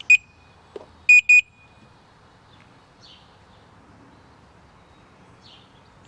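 Veteran Sherman electric unicycle's control board beeping as its power button is pressed with the battery disconnected, draining the last power from the board: one short, high beep, then two quick beeps about a second later.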